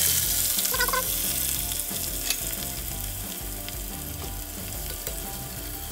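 Sliced onions frying in hot canola oil with garlic and whole spices, sizzling loudly just after being tipped in, then settling to a steadier, quieter sizzle.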